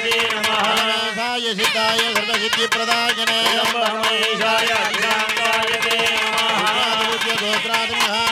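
Carnatic temple music from a nadaswaram and thavil ensemble: an ornamented, wavering reed melody over a steady drone, with dense drum strokes throughout.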